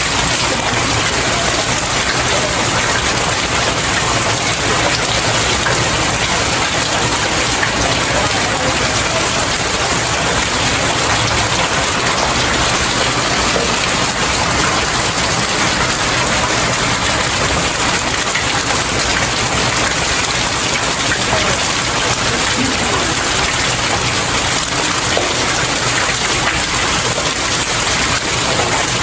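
Steady, heavy rain falling on and pattering off outdoor stairs, an even hiss with no let-up.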